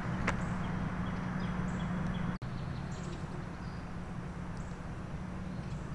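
Outdoor park ambience: a steady low background noise with a few faint bird chirps, broken by a brief dropout about two and a half seconds in.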